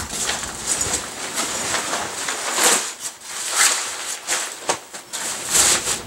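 Nylon fabric shell of a Bighorn float tube rustling as it is flipped over and smoothed flat, in a run of short swishes.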